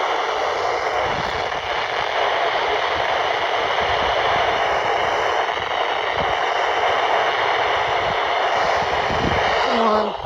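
Steady hiss of radio static from a weather radio receiver, with no voice or alert tone.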